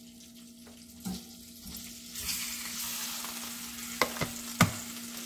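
Shredded boiled pork sizzling as it is tipped into a hot, oiled nonstick frying pan, the sizzle setting in about two seconds in. Near the end a wooden spoon knocks against the pan three times as the meat is stirred.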